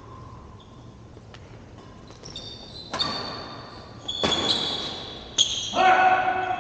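Badminton rackets striking a shuttlecock in a rally: three sharp hits with a high, ringing ping, echoing in a large hall, after a few lighter ticks. Near the end comes a held, pitched sound.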